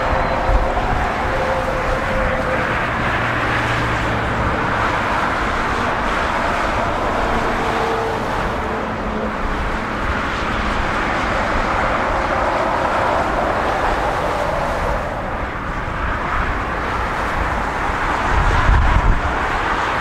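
Jet airliner engines running, a loud steady rushing noise that swells and eases slowly, with a faint whine at times. Wind buffets the microphone near the end.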